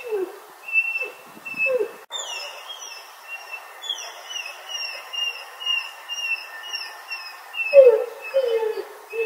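English bulldog making short, falling whining grunts near the start and again near the end, over a run of high, repeated, whistle-like chirping notes.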